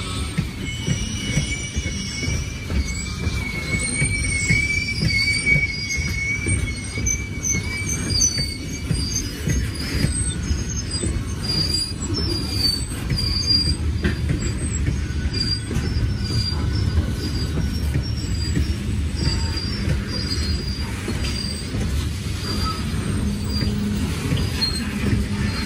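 Loaded coal hopper cars rolling past at close range down a steep grade: a steady rumble of steel wheels on rail, with wheel squeal. A sustained squeal runs through roughly the first nine seconds, then gives way to many short, higher-pitched squeals.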